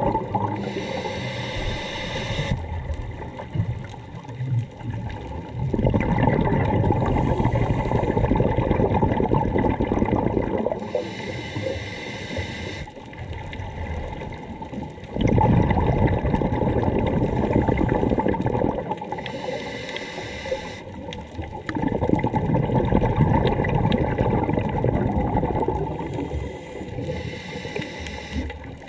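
Scuba diver breathing through a regulator underwater: a hissing inhale, then a long bubbling exhale, repeating about every eight seconds for four breaths.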